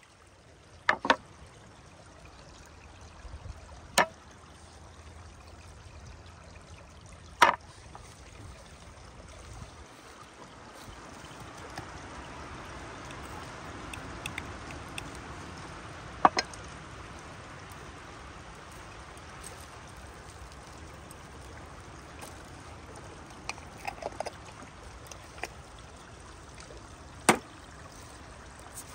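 Shallow forest stream trickling steadily over stones, broken by about five sharp, short knocks of hard objects being set down.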